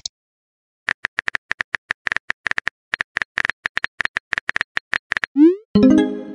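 Simulated phone-keyboard key clicks, a quick run of taps as a text message is typed letter by letter. Near the end comes a short rising whoosh, then a ringing tone as the message is sent.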